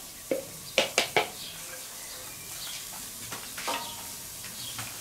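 A wooden spatula knocks several times against a plastic bowl as the last diced vegetables are scraped into a hot pan over charcoal, the knocks coming in the first second and a half. After that the vegetables sizzle steadily in the pan while the wooden spatula stirs them.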